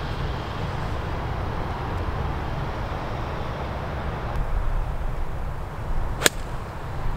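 A golf club striking a ball on a pitch shot: one crisp click about six seconds in, over a steady low rumble.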